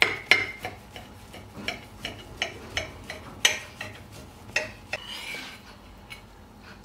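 A large kitchen knife cuts a thick walnut kuku into wedges. Its steel blade clicks, taps and scrapes against the cut-glass serving plate: a quick run of clicks at the start, scattered taps after, the loudest about three and a half seconds in, and a short scrape near the end.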